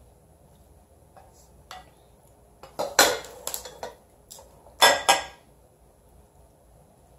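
Kitchen utensils and cookware clattering: a metal ladle being put down and a glass baking dish handled on the counter. There are a couple of light knocks, then two short bursts of clatter about three and five seconds in.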